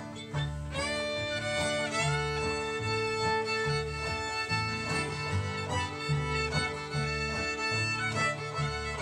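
Old-time string band playing an instrumental break with the fiddle taking the bowed lead melody from about a second in, over banjo, acoustic guitar and upright bass keeping a steady pulse.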